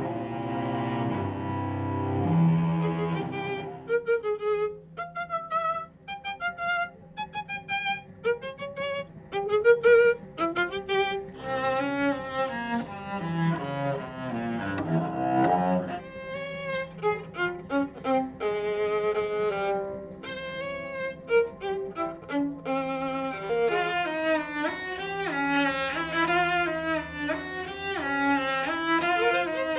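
Bowed string music: low sustained cello and double bass notes, then a violin melody with sliding notes that grows busier and higher toward the end.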